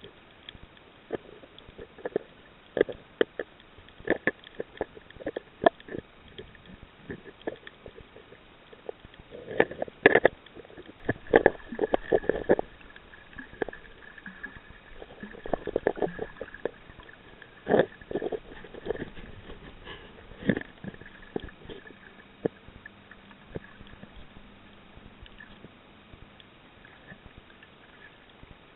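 Underwater sound picked up by an action camera just below the surface: irregular gurgles, sloshes and sharp pops of water and movement, thickest in clusters about ten to twenty seconds in. A faint steady hum sits behind them through the middle and later part.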